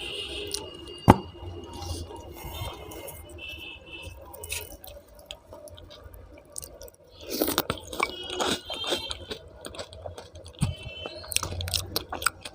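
Close-miked eating sounds: chewing and wet, squishy mouth sounds of someone eating aloo paratha with dum aloo, with a sharp click about a second in and a busier stretch of chewing past the middle.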